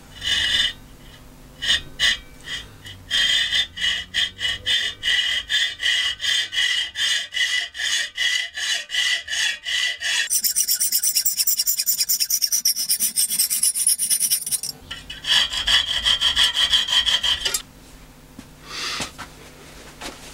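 Hacksaw cutting through M10 steel threaded rod clamped in a bench vise, in steady back-and-forth strokes about two a second. For about four seconds in the middle the strokes come quicker and higher-pitched, and the sawing stops a few seconds before the end as the cut goes through.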